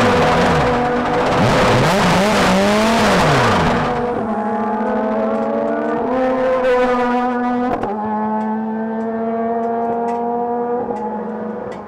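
Star Mazda race car's rotary engine, loud, its pitch rising and falling about once a second for the first four seconds. It then settles to a steady idle, with a few small steps in pitch.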